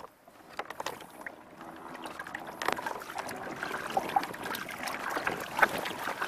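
Water splashing and trickling around a kayak as it is paddled, with irregular splashes, getting louder from about two seconds in.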